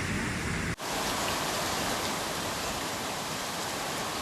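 Steady, loud rush of floodwater, with a momentary cut-out about a second in.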